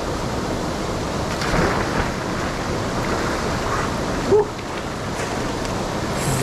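Steady rush of a small waterfall into a mountain pool, with splashing as a man jumps into the cold water and swims; the loudest moment is a short sharp sound a little past four seconds in.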